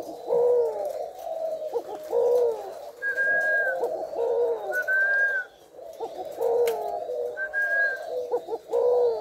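A white male spotted dove cooing over and over, one rolling coo phrase about every two seconds: the sustained display cooing of a breeding male. A short, thin, high whistle sounds three times between the coos.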